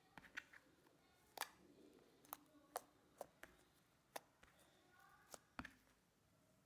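Slime being worked by hand, giving a dozen or so sharp, irregular clicks and pops.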